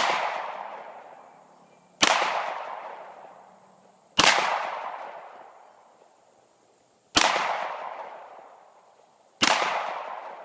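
Glock pistol fired five times, a shot about every two seconds with a longer gap in the middle, each sharp crack trailing off over a second or two.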